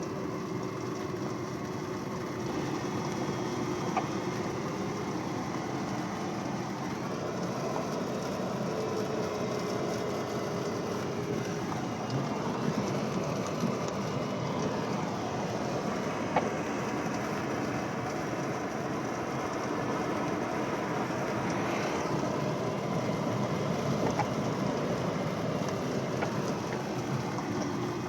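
Steady rushing noise inside an aircraft cockpit in flight, with a faint wavering tone coming and going and a few brief clicks.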